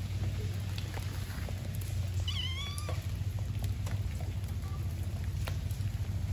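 Kitten meowing once, a short wavering meow about two seconds in, over a steady low background rumble and scattered faint ticks.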